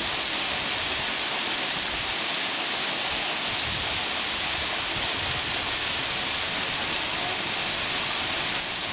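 Artificial waterfall pouring steadily, a continuous rushing of falling water.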